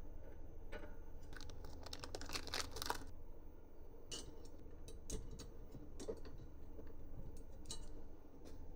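Hands at work assembling a 3D printer kit: small clicks, taps and crackling as parts and tools are handled, with a dense run of crackling from about one to three seconds in and scattered single clicks after it.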